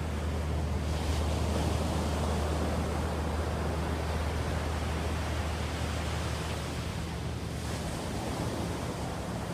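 Ocean surf washing in over a steady low rumble. The surf swells twice, about a second in and again near the end.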